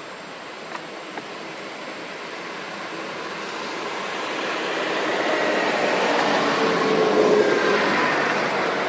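A passing vehicle: a broad rushing engine noise swelling steadily louder, loudest about seven seconds in.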